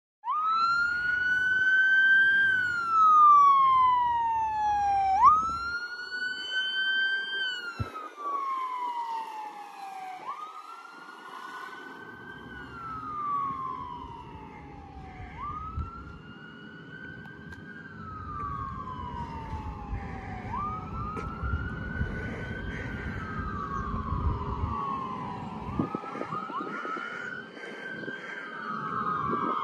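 Fire engine siren sounding a wail. Each cycle jumps up quickly, then falls slowly, repeating about every five seconds. It is loudest at the start and weaker as the truck moves off, and near the end the sweeps overlap.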